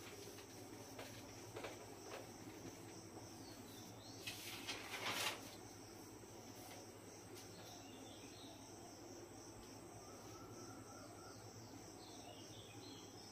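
Quiet room with a faint, steady, high-pitched cricket trill. About four seconds in, a rubbing noise lasting just over a second as the whiteboard is wiped clear, with a few faint clicks before it.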